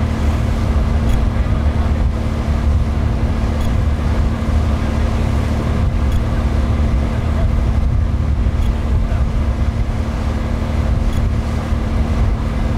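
Passenger ferry's engine running steadily under way: a constant low drone with a steady hum over the rush of water and wind.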